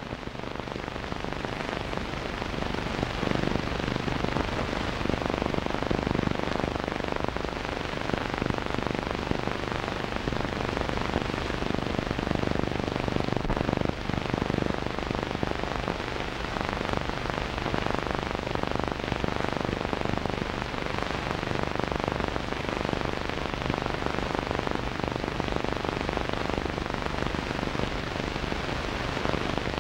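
Steady hiss and crackle of an old film soundtrack, with a low steady hum underneath; it swells up over the first couple of seconds and then holds.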